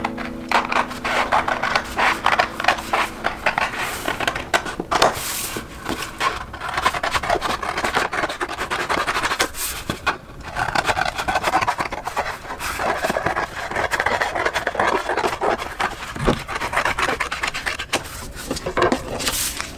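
Scissors cutting through a large sheet of pattern paper: an uneven run of snips with the paper crackling and rustling, easing briefly about ten seconds in.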